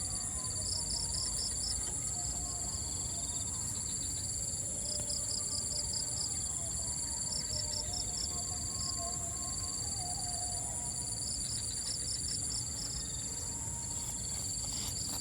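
Insects trilling steadily in a continuous high buzz, while another insect repeats short groups of rapid chirps every couple of seconds over a low outdoor rumble.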